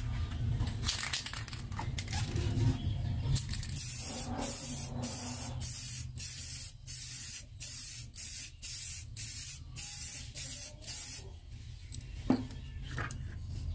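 Aerosol spray paint can spraying: one longer spray of about two seconds, then a run of short hissing bursts, about two a second, stopping near the end.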